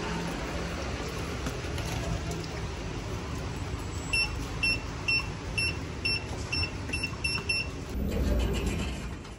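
City street traffic noise, with a run of about ten short, high electronic beeps, roughly two a second, through the middle. A louder low rumble follows near the end, like a vehicle going by.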